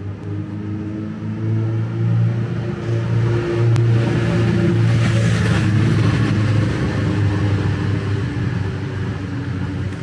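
Motorcycle riding past along the street, its engine note building to its loudest about halfway through and then fading away.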